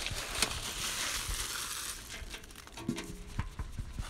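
Dry leaf litter rustling and crunching, densest in the first two seconds, then thinning to scattered crackles, where ash and biochar have just been scattered over it. A brief low pitched sound comes near three seconds in.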